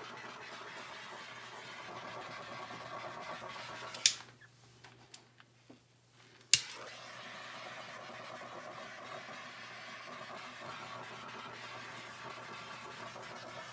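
Small handheld torch flame hissing steadily as it is swept over wet acrylic paint to raise cells. About four seconds in it clicks off, and after a couple of seconds of quiet it clicks back on and hisses again.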